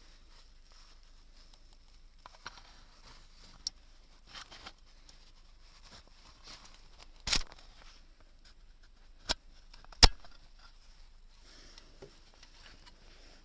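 Small objects being handled on a work surface: light rustling with a few sharp clicks and knocks, the loudest about ten seconds in.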